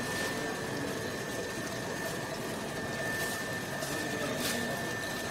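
Steady hum and hiss of café counter machinery, with a constant high whine and a couple of faint clicks.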